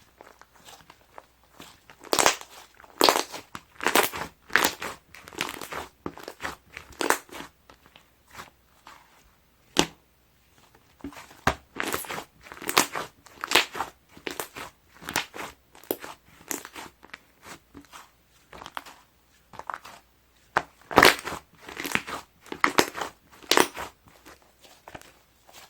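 Hands squishing and pressing soft, fluffy milk-ice-cream slime, making irregular runs of sticky pops and crackles.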